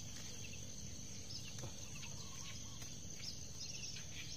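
Outdoor ambience: small birds chirping now and then over a steady high insect drone, with a low rumble underneath.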